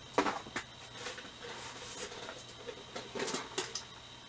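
Cardboard model kit boxes and bagged plastic parts being handled: a few short taps and rustles, with a cluster of them about three seconds in.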